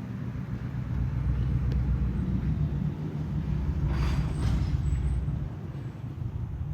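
Engine of a large road vehicle running with a low rumble, with a brief hiss about four seconds in.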